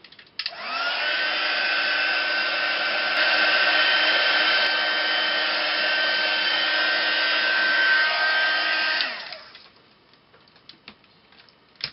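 Craft heat gun switched on about half a second in. Its fan motor spins up to a steady whine over rushing hot air, drying freshly sprayed ink mist. After about eight and a half seconds it is switched off and winds down.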